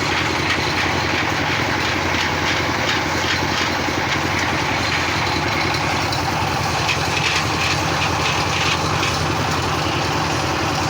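Engine of a hydraulic piling drill rig running steadily, with a constant low hum under mechanical clatter.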